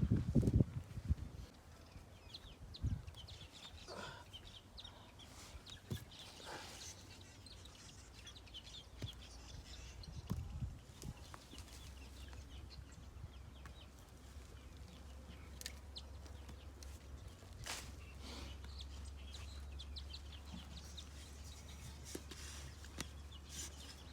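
Chickens clucking now and then, a few short calls over a steady low rumble. A loud low thump right at the start is the loudest sound.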